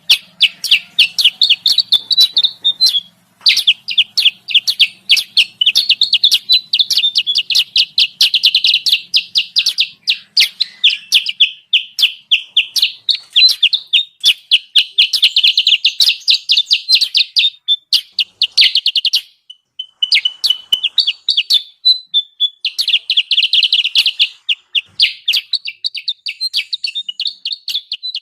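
Kutilang sutra lure call used for bird trapping: long runs of rapid, high, repeated chirping notes, several a second, broken by a couple of short pauses.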